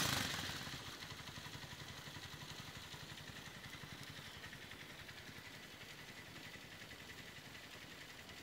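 Mirage 150 motorcycle engine breathing through an aftermarket Roncar sport exhaust: a quick rev at the very start drops back within a second to a steady, evenly pulsing idle. The exhaust note is deep and full-bodied.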